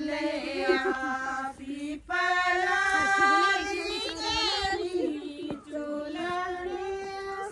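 A high female voice singing a song in long held notes with gliding ornaments, in phrases broken by short breaths.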